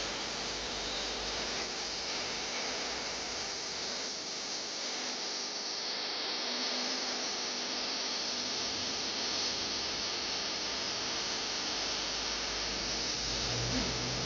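Steady rush of flowing water from the spring's cascades and channels, an even hiss without breaks.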